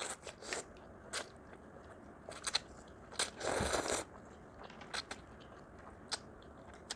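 Eating sounds at close range: scattered short crunches and clicks from food being bitten, chewed and pulled apart, with a longer crackling stretch about three and a half seconds in.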